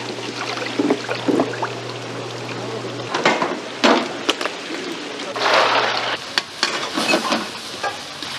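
Seafood-market tank sounds: water running and splashing into a live-seafood tank over a steady low hum, with knocks, clatter and brief voices. The sound changes abruptly in several places where shots are cut together.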